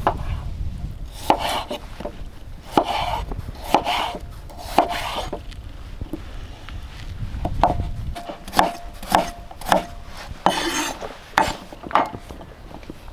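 A knife working on a wooden board: a series of separate scraping and chopping strokes, roughly one a second, as lamb is prepared. Wind rumbles on the microphone for the first two-thirds.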